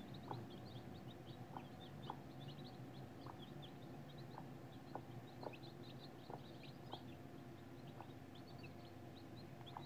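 Newly hatched domestic chicken chicks peeping faintly and without pause, many short, quick, downward-sliding high peeps, with a short lower note roughly once a second.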